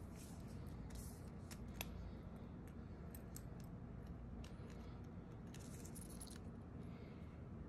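Faint handling of a Casio G-Shock's resin watch strap and buckle being fastened on the wrist: scattered small clicks and brief rubbing, with one sharper click a little under two seconds in.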